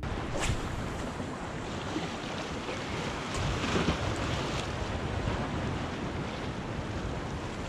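Waves washing and splashing against jetty rocks, with wind buffeting the microphone; a wave breaks a little louder about four seconds in.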